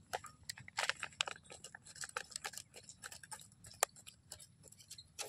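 Scissors cutting open a stiff plastic seed packet: a run of irregular crisp snips and crinkles.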